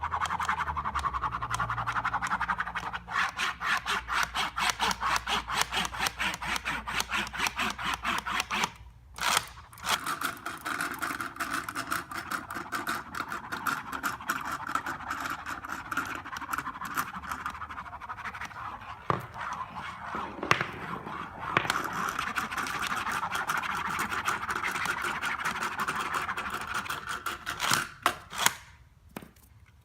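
Small kinetic objects rattling and scraping in a fast, dense stream of clicks, with short breaks about nine seconds in and near the end.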